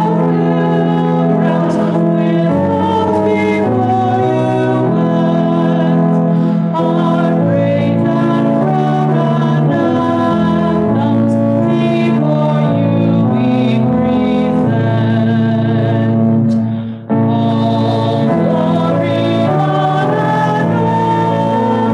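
A hymn: voices singing over held accompanying chords that change every second or so, with a brief break about three-quarters of the way through.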